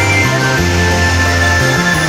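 Background music: an instrumental track of sustained notes over a bass line that steps to a new note every half second or so.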